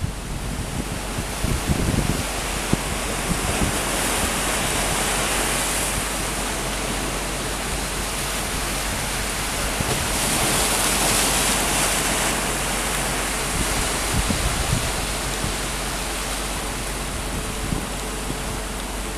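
Steady rushing outdoor noise with no voices or engines standing out, swelling twice: once about four seconds in and again about ten seconds in.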